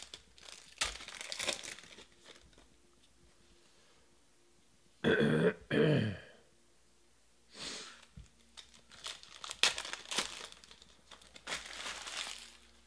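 Foil trading-card pack wrappers crinkling and cards being shuffled and set down on stacks, in scattered rustles and light clicks. About five seconds in, the person handling them gives two short coughs.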